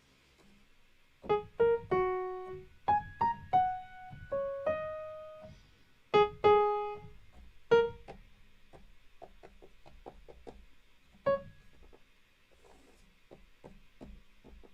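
Software piano sound in a DAW played from a MIDI keyboard: about a dozen single notes struck one at a time and left to ring out, with one more a few seconds later, then faint clicking of the controller's keys.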